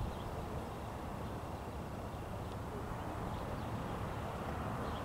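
Steady low outdoor rumble with faint, scattered bird chirps.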